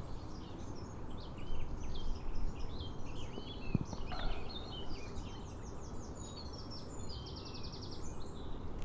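Small birds chirping and singing, with a quick rapid trill near the end, over a steady low outdoor rumble.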